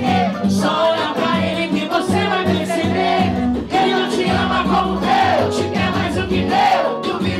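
Upbeat song playing, with singing voices over a bass line.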